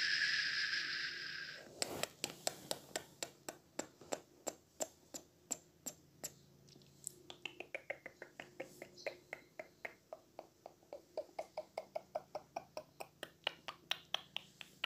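A steady hiss for about the first two seconds, then a long run of sharp clicks, a few a second at first and faster near the end, some with a falling pitch.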